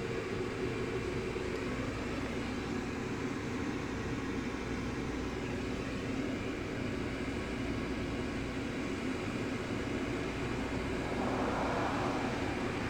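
Sterling Model M fire siren sounding a steady, unbroken tone. A brief rushing noise rises over it about eleven seconds in.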